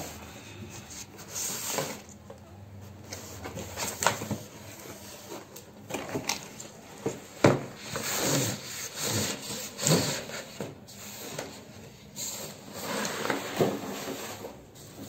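Cardboard box being opened and a large film-wrapped painting slid out of it: irregular rubbing and scraping of cardboard against the panel, with a sharp knock about halfway through.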